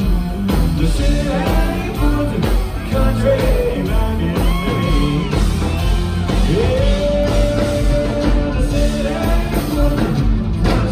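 Live country band playing a song at full volume, with a steady drum beat and a singer who holds one long note in the middle.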